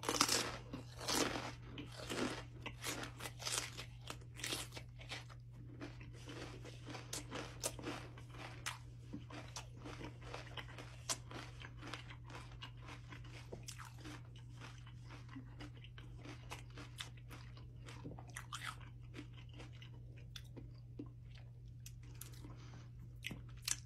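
A raw jalapeño pepper loaded with Blue Heat Takis chips being bitten and chewed close to the microphone. The crisp crunches come fast and loud in the first few seconds, then slow to quieter, sparser chewing.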